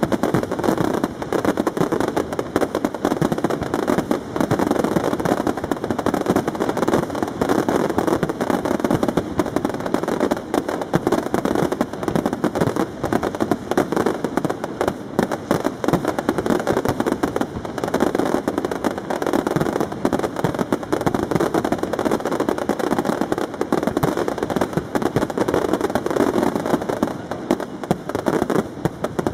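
Fireworks display: many aerial shells bursting and crackling in rapid, unbroken succession.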